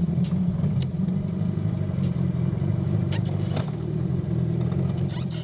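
Boat motor running steadily while the boat is under way, with a few sharp clicks over it.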